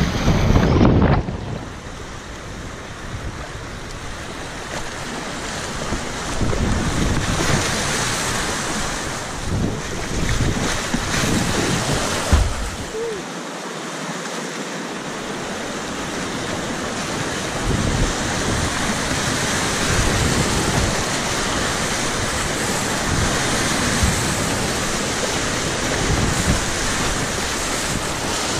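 Fast river water rushing and churning around a whitewater kayak, with irregular splashes of the paddle strokes. Wind buffets the microphone now and then as low thumps.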